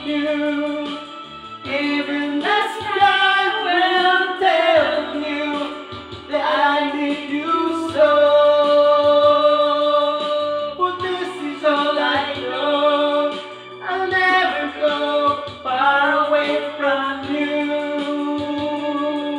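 A man singing into a handheld microphone, with gliding phrases and one long held note about halfway through.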